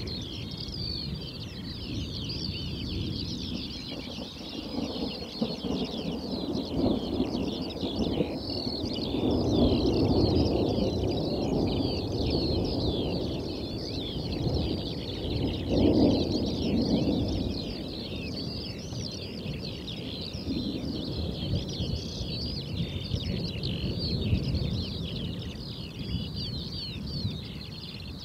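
Thunderstorm field ambience: dense high chirping runs throughout, over low rumbles of distant thunder that swell about a third of the way in and again a little past halfway.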